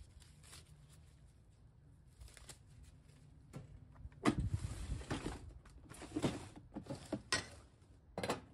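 A hard plastic camp stove carrying case being handled on a glass tabletop: an irregular run of knocks, scrapes and clicks starting about four seconds in, the loudest knock at its start.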